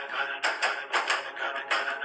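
Background music with a fast, steady percussive beat of sharp strokes, several a second.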